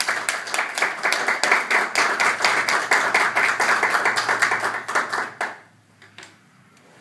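A small group of people applauding. The clapping dies away about five and a half seconds in, leaving a few last claps.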